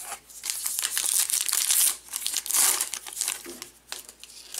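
Wrapper of a 2020 Topps Archives baseball card pack crinkling and tearing as the pack is opened, in two loud stretches of rustle that die down near the end.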